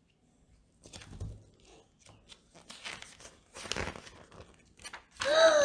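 Irregular rustling and crinkling as Lego pieces are handled and sorted. Near the end a child starts singing.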